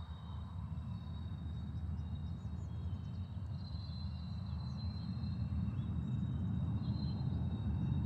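Low, steady rumble of a loaded coal train's hopper wagons rolling along the track, growing louder near the end, with birds chirping over it.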